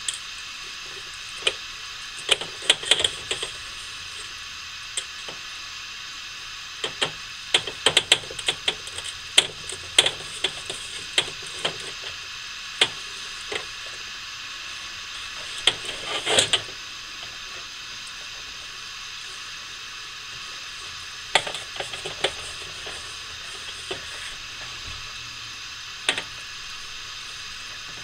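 Knife slicing through a rack of smoked baby back ribs on a plastic tray: scattered clicks and taps of the blade on the tray, in clusters with pauses between, over a steady hiss.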